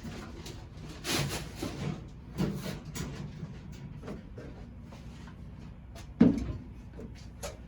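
Scattered scraping and rustling of hands and cord working a rubber windshield gasket into a car's window opening, done dry without soap. There is one sharp knock a little after six seconds in.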